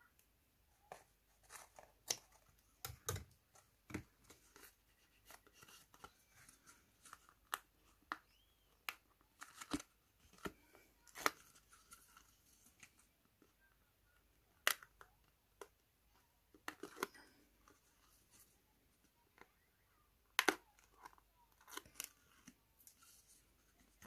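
Faint paper and cardstock handling: scattered taps, rustles and small clicks as cut card pieces are fitted and pressed into a box lid.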